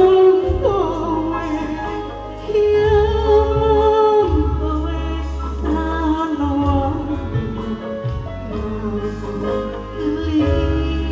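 Live band music with a woman singing long, held notes over a steady bass line.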